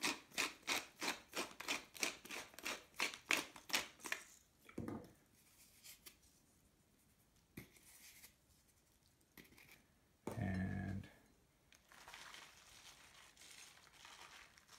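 Wooden pepper mill grinding black pepper: an even run of crunching clicks, about four a second, that stops after about four seconds. A thump follows shortly after, then a brief louder clunk about ten seconds in.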